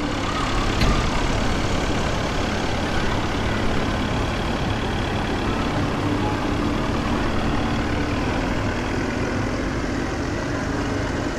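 A steady engine-like running noise with a faint low hum.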